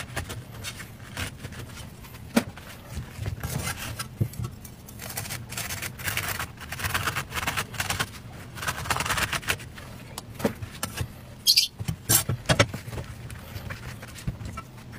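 Steel cleaver scraping the pith and seeds out of halved gourds on a wooden chopping block: repeated rasping strokes, with sharp knocks of the blade on the board, the loudest a cluster of knocks about twelve seconds in.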